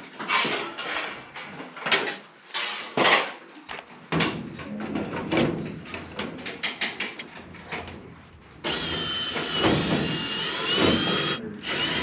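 Sheet-metal parts being handled and knocked, a series of short clicks and bangs, then a cordless drill/driver running steadily as it drives a screw into the sheet-metal plenum, with a short pause near the end.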